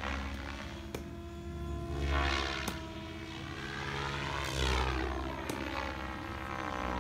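MSH Protos 700 radio-controlled helicopter in flight, its rotor and motor whine sliding up and down in pitch as it manoeuvres and passes. It swells louder about two seconds in and again about four and a half seconds in.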